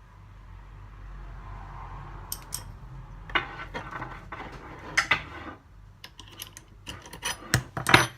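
Metal hand tools and a braided-hose fitting clinking and clattering as they are handled: a run of sharp knocks and clicks that come thicker and louder in the last few seconds.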